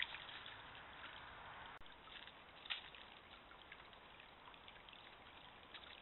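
Faint trickling of a small stream under the hiss of a trail camera's microphone, with scattered soft ticks and one sharper click a little under three seconds in. The sound drops out briefly just before two seconds in, where one recording ends and the next begins.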